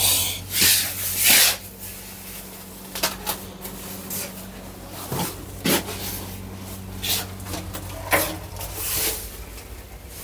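Rustling and knocking handling noises, with a few sharp clicks, over a steady low hum.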